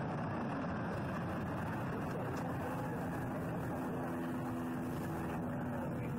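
Kiddie roller coaster train rolling along its steel track, a steady rumbling noise with a humming tone that comes in about halfway through as the train comes round toward the track near the camera.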